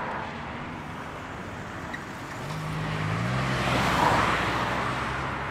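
Street traffic: a motor vehicle drives past close by, its engine tone showing low and shifting pitch as the noise swells to its loudest about four seconds in and then fades, over steady road noise.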